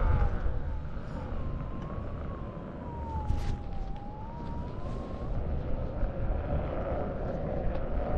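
Begode A2 electric unicycle's hub motor whining as it is ridden. Its pitch dips smoothly and climbs back over a few seconds as the wheel slows and speeds up again, over a steady low rumble of wind and tyre noise.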